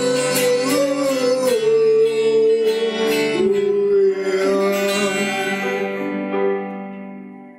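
A live rock band's closing music: sustained chords and a held note over drum hits, fading out near the end.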